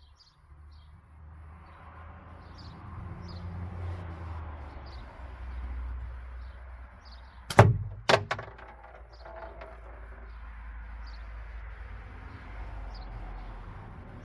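A slingshot shot: two sharp cracks about half a second apart, then a brief rattle as a 10 mm steel ball strikes a homemade target fitted with a rattle. Birds chirp throughout.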